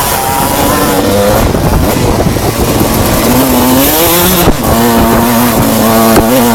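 Enduro motorcycle engine revving hard, its pitch climbing and dropping repeatedly as the throttle and gears change, with a sharp knock about four and a half seconds in.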